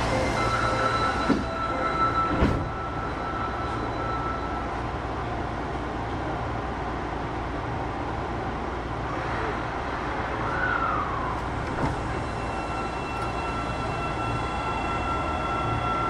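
Osaka Metro 25 series subway train running through a tunnel, heard from inside the car: a steady running rumble with faint steady whine tones and a few knocks in the first few seconds. A short falling tone sounds about ten seconds in.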